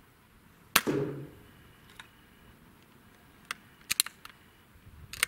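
A BSA Ultra SE .177 PCP air rifle fires once, a sharp crack about a second in with a short ring after it. A few seconds later the bolt is cycled, a quick cluster of metallic clicks as the next pellet is chambered from the magazine, with another click or two near the end.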